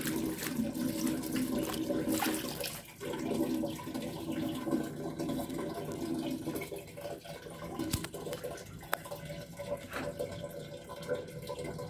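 Water running from a garden hose into a plastic basin of artificial flowers as they are rinsed by hand, with light sloshing. A few light clicks near the end.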